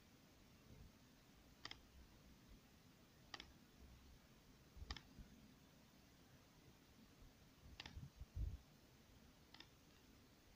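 Near silence with faint, sharp clicks about every one and a half to two seconds, and a soft low thump a little past the middle.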